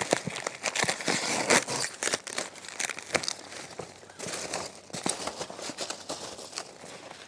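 Hands rummaging through styrofoam packing peanuts in a cardboard box: a dense crinkling rustle full of small clicks, busiest in the first two seconds and lighter after that.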